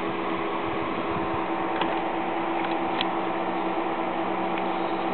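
Three small cooling fans on a 1-watt laser diode rig running with a steady whirring hum, with a couple of faint ticks.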